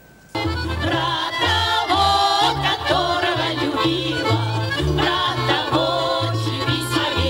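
Women's folk ensemble singing a song in chorus over instrumental accompaniment with a steady stepping bass line. The music cuts in suddenly about half a second in.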